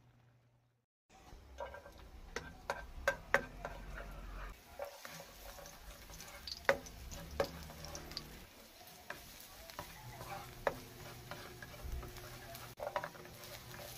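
Sliced red onion and garlic sizzling in oil in a nonstick pan while a black plastic spatula stirs them, clicking and scraping against the pan. It starts about a second in.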